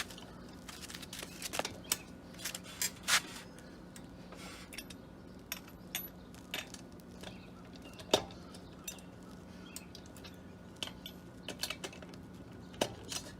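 Scattered metallic clinks and clicks of a steel socket and breaker bar being fitted onto a wheel lug nut and worked to break it loose, with one sharp loud click about eight seconds in.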